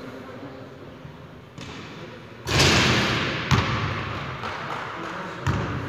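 A ball thudding and bouncing on a hard floor in a large hall. The loudest is a sudden bang about two and a half seconds in, followed by further sharp thuds about a second and three seconds later.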